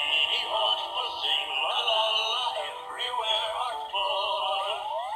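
Yo-kai Watch toy playing its electronic summoning tune through its small speaker after a Yo-kai medal is inserted: a busy, warbling melody.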